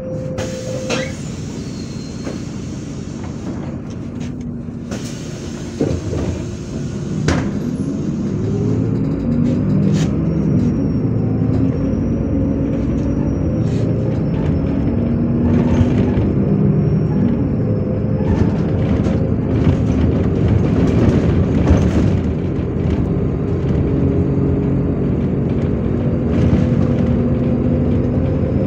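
MAZ-103 city bus heard from inside, its engine running. About seven seconds in a sharp knock is heard, the bus pulls away, and the engine's pitch rises as it accelerates, then stays up as it drives on with occasional knocks and rattles.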